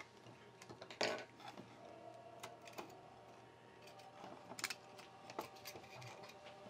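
Scattered faint clicks and taps from a small electronics enclosure being taken apart by hand: the display and front-panel assembly is lifted off the black metal chassis. The sharpest click comes about a second in.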